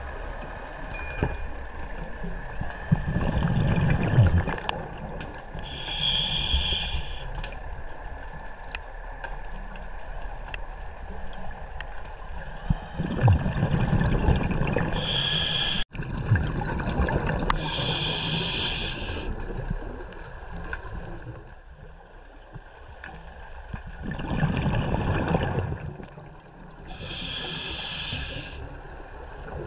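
Scuba diver breathing through a regulator underwater: about every ten seconds a surge of gurgling exhaled bubbles, with short bright hissing breaths, over a faint steady hum.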